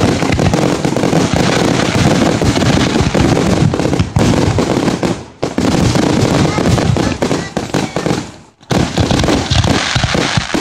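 Fireworks finale barrage: aerial shells bursting and crackling in rapid, overlapping succession, an almost continuous din that briefly thins out about five seconds in and again about eight seconds in.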